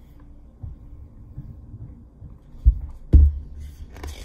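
Dull low thumps and knocks as a hardcover picture book is handled, the loudest a little past the middle, then brief paper rustles as its pages are flipped near the end.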